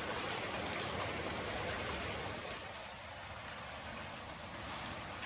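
Steady rushing of flowing floodwater, an even hiss with no distinct events.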